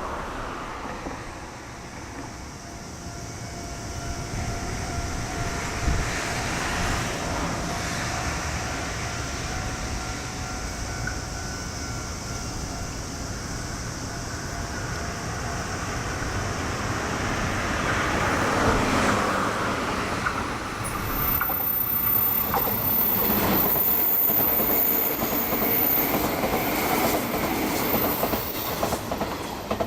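A train passing over a level crossing, getting louder in the second half: wheels clicking over the rail joints, with a high wheel squeal near the end.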